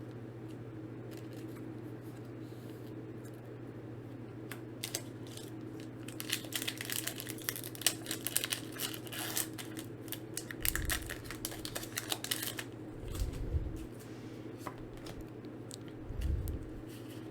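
Foil Pokémon card booster pack being torn open and crinkled in the hands, a dense crackle from about five to twelve seconds in, followed by a few soft handling bumps. A low steady hum runs underneath.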